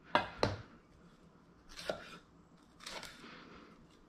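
Chef's knife cutting through ripe tomatoes on a wooden cutting board: a few soft slicing strokes, two close together near the start, one about two seconds in and a longer, scraping one about three seconds in.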